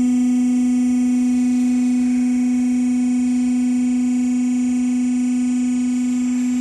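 Hydraulic power unit of a vacuum planetary mixer running to raise the mixing head, giving a steady, loud single-pitched hum.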